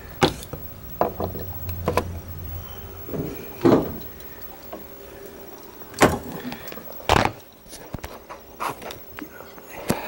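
Handling noise as hoses and a power cord are moved and connected: about half a dozen irregular knocks and thumps, with a faint steady hum underneath.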